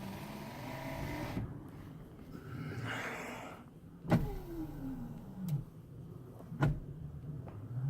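Electric power window motors in the rear doors of a 1989 Jeep Grand Wagoneer running the glass up and down, a whine that slides down in pitch a little after the middle and rises again near the end. Several sharp clicks fall between the runs.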